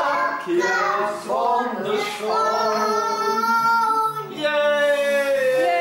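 A child singing, holding long drawn-out notes through the second half.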